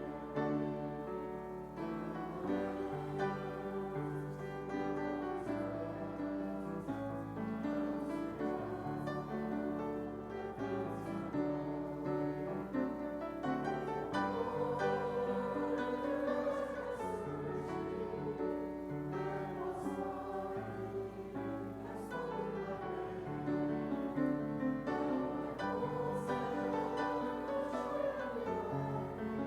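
A group of voices singing a hymn with piano accompaniment.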